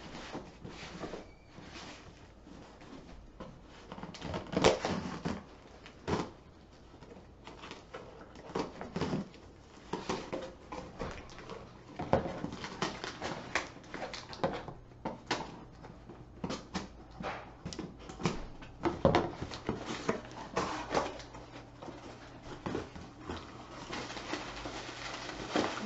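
Cardboard boxes being opened with a steak knife: irregular scraping and cutting, cardboard and packaging rustling, and knocks and clacks of varying loudness.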